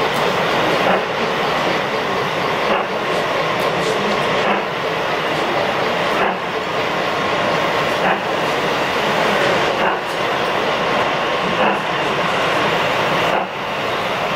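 Gauge 1 model steam locomotive running slowly along the track: a steady running noise with a regular beat about every two seconds.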